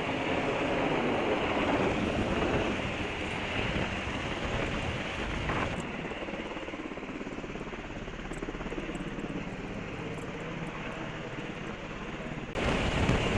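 Helicopter hovering overhead during a hoist, a steady rotor and engine noise with downwash wind buffeting the microphone. It drops in level about halfway through and jumps back up sharply shortly before the end.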